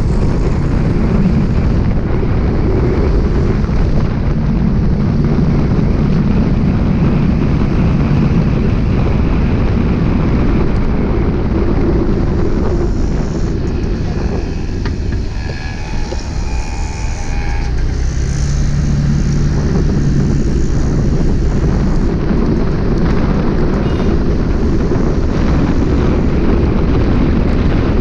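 Steady, loud rush of wind and road noise from riding a two-wheeler through city traffic. Some faint higher tones come through in the middle.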